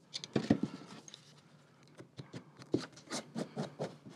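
Paper rubbing and rustling as a book page is folded and creased. There is a knock about half a second in as a steel ruler is set down, then about five short rubbing strokes from a bone folder pressing the crease near the end.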